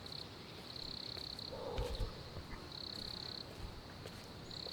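An insect calling in a high, even trill, in bouts of under a second repeated about every two seconds, with a soft scuff about two seconds in.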